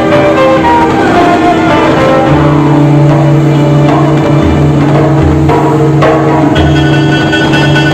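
Background music: a loud, steady instrumental track with held melody notes and a low bass line that comes in about two seconds in.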